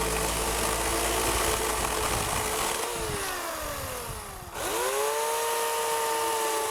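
Homelite electric chainsaw's motor running at full speed, winding down in pitch about three seconds in, then spinning quickly back up to full speed about a second and a half later.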